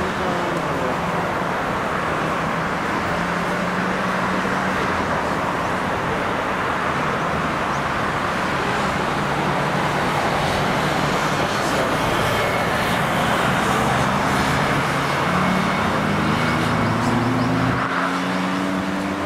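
Lockheed P-3 Orion's four turboprop engines droning on final approach to land, gear down, a steady rushing drone that slowly grows louder, with a low humming propeller tone that strengthens and rises in pitch over the last few seconds.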